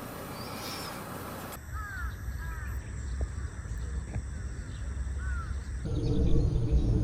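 A steady hiss for the first second and a half. Then birds calling in short arching notes over a low rumble, which grows louder near the end.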